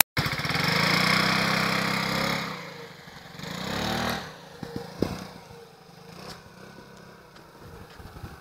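Small motor scooter engine revving hard as it pulls away over a muddy dirt track, rising and falling in pitch once more about four seconds in, then fading to a low drone with a few knocks as it moves off.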